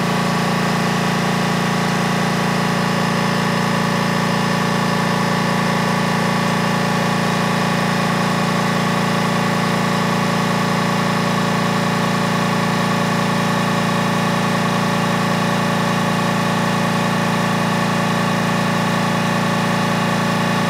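ROK 10925 oil-less 'ultra quiet' air compressor (0.65 HP, 1400 RPM motor) running steadily, a continuous even hum that does not change in pitch. It has kicked on at its 85 PSI cut-in and is refilling its small tank.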